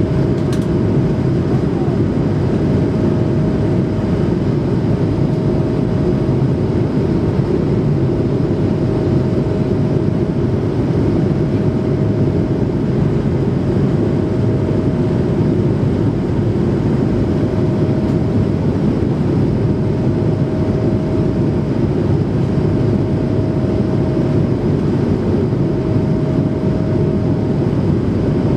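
Steady cabin noise inside an Airbus A220-300 in flight: low engine and airflow noise from its Pratt & Whitney PW1500G geared turbofans, with a faint hum that fades in and out every few seconds.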